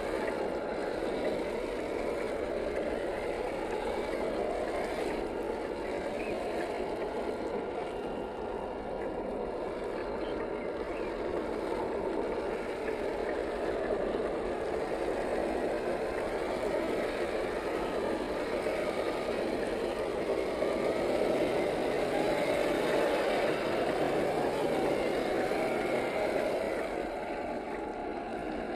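RC crawler's 540-size electric motor and geared drivetrain whining under load as the truck grinds through mud, its tyres churning the wet dirt. The sound stays fairly even and swells somewhat in the later part.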